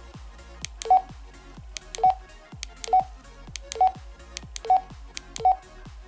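Baofeng UV-5R handheld radio's keypad beeps as the menu is stepped through with the arrow key: six short, single-pitched beeps about one a second, each with a faint key click.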